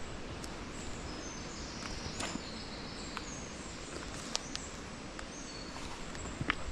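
Steady rush of river water over a stony bed, with a small bird twittering in short high phrases and a few sharp clicks of footsteps on stones.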